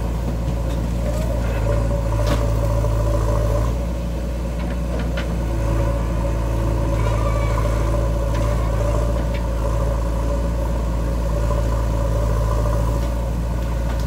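Diesel engine of a JCB 3DX backhoe loader running steadily under working load while the backhoe digs and dumps soil, its note dipping briefly and picking up again. A few sharp clicks and knocks sound over it.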